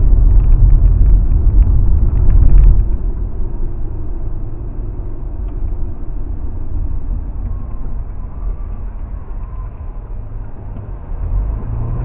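Car engine and tyre rumble heard from inside the cabin while driving. It is loud for the first couple of seconds, then drops to a quieter steady rumble.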